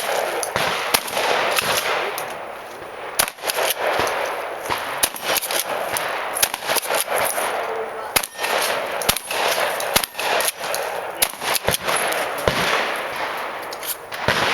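Shotgun fired repeatedly at irregular intervals, some shots in quick pairs and runs with short pauses between, over a steady hiss.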